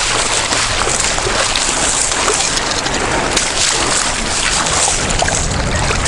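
Sea surf: waves washing and sloshing with water splashing, an even rushing noise throughout.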